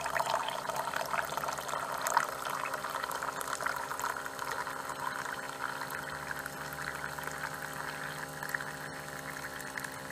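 Hot water from a Mr. Coffee BVMC-KG5 single-serve coffee maker pouring in a thin steady stream and splashing into a ceramic mug as it fills, over a steady low hum. The brew is running freely now that the machine's kettle has been cleaned of lime scale.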